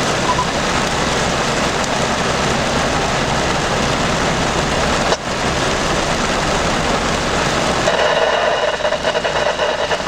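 Heavy rain falling, a steady rushing hiss that briefly drops out about five seconds in; near the end faint wavering tones come in over it.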